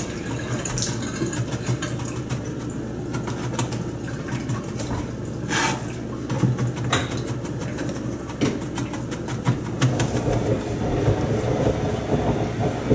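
Kitchen knife chopping garlic on a plastic cutting board: a string of quick, uneven taps, over a steady low hum.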